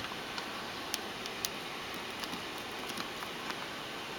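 A few short, faint clicks and taps as a plastic and die-cast action figure is handled and set in its pose, over a steady background hiss.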